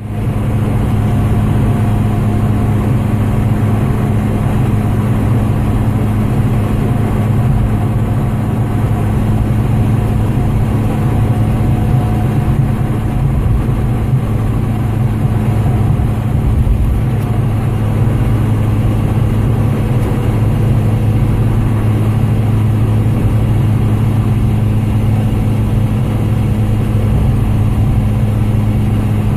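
A car's engine running steadily, a constant low drone with no change in pitch.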